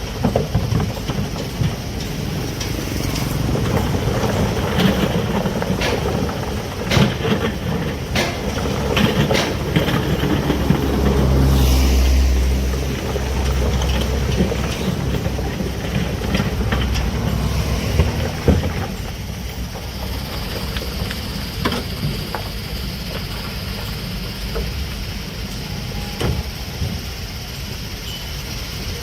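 Heavy excavator's diesel engine running under load at a construction site, with frequent metallic clanks and knocks. The engine swells louder about a third of the way in, then settles to a steadier, quieter run for the last third.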